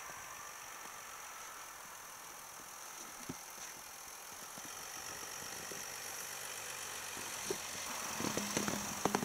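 Audi A6 Allroad's 3.0 TDI V6 diesel engine running at low revs as the car crawls through snow, growing louder as it comes close. A few sharp clicks near the end.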